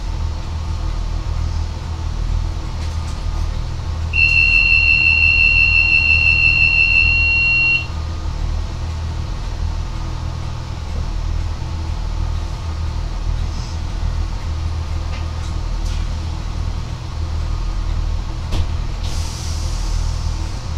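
Class 143 Pacer diesel railcar running, a steady low rumble. About four seconds in, a steady high electronic beep sounds for about three and a half seconds. A short hiss comes near the end.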